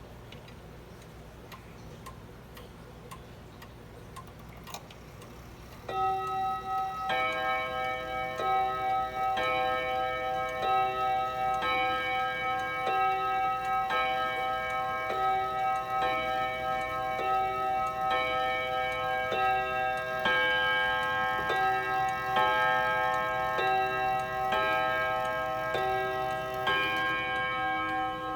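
German mechanical wall clock ticking softly. About six seconds in, its chime starts playing a slow melody of struck, ringing notes, a new note about every second, each ringing on under the next.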